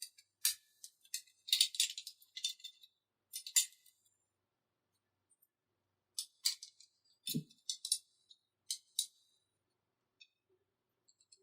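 Parts of a Tokyo Marui Mk23 airsoft pistol clicking and rattling as they are handled and fitted back together by hand: a run of light clicks, a pause of about two seconds, then a second run of clicks with a soft thump in the middle of it.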